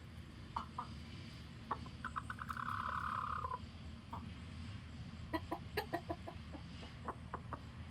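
Chickens clucking and calling, the kind of sound chickens use to warn the flock: a few single clucks, a drawn-out rattling call about two seconds in, then a quick run of clucks and a few more near the end.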